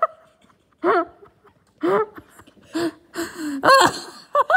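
A person laughing in a put-on character voice for a Shrek toy: several short bursts of laughter about a second apart, the last one the longest.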